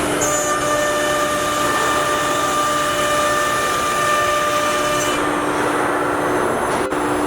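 CNC router's spindle running and cutting, a steady whine over hissing noise. The tone changes about five seconds in, with a brief drop near the end.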